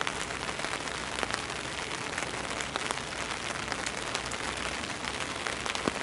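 Steady rain falling on a wet street: an even hiss with scattered raindrop ticks.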